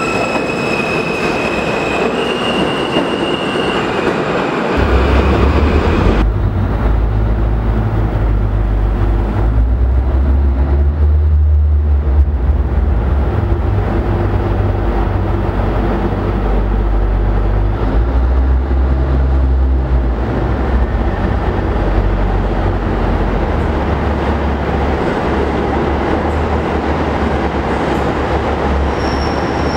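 New York City subway R160 train pulling out of the station, its propulsion giving a whine that steps up in pitch over the first few seconds. A deep rumble of train noise in the tunnel follows, and near the end the high whine of another train approaching comes in.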